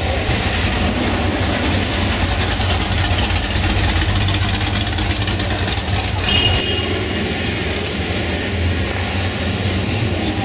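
Muscle car engines idling and running as the cars creep past at walking pace in a large exhibition hall. A deep, heavy rumble dominates and drops away abruptly about two-thirds of the way through, leaving a lighter engine sound.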